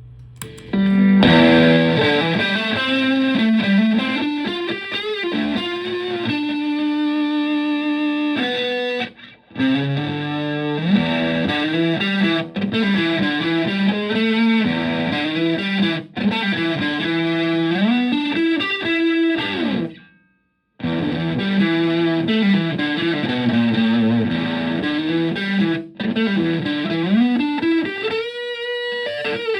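Electric guitar played through a germanium-transistor Tone Bender MKI fuzz pedal into a Twin Reverb-style amp: fuzzy single-note riffs with string bends. It stops briefly twice, and a held high note rings near the end.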